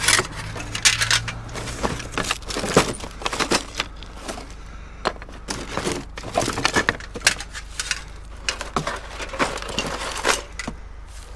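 Irregular clattering and knocking of hard items being handled and shifted, over a steady low hum.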